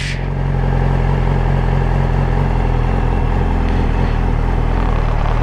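2009 Yamaha R6's inline-four engine with an aftermarket M4 exhaust running steadily at idle revs as the clutch is slowly let out in first gear, pulling the bike away without throttle.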